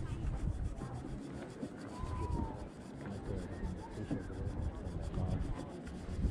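Close rubbing and scraping handling noise as hands work a jig and spinning reel right by the microphone.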